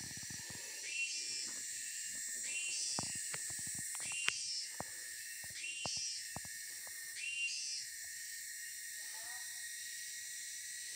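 Rainforest insect chorus, a steady high hiss, with a short call repeated about every one and a half seconds until about seven seconds in. Clicks and crunches of footsteps on forest-floor leaf litter sound through the first seven seconds.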